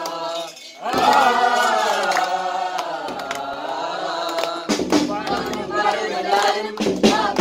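A group of voices singing a Christmas carol together in long held notes, after a short break about a second in. About two-thirds of the way through, sharp percussion strokes come in with a beat.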